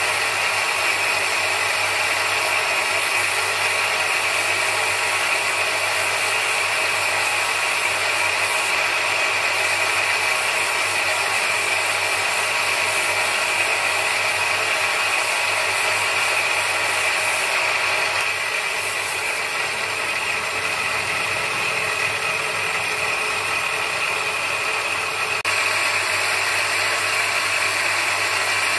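Bench grinder running with a sanding disc while a bacan gemstone on a dop stick is pressed against it: a steady whir with a grinding hiss over a low motor hum. The sound softens a little for several seconds and then comes back up abruptly near the end.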